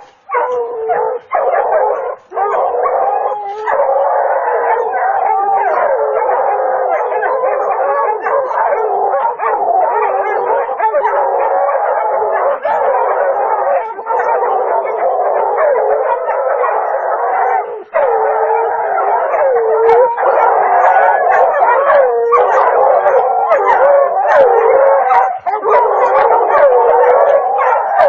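Hounds baying and howling without pause at a big cat cornered on a tree limb. Their long, wavering cries overlap, with only a few brief breaks.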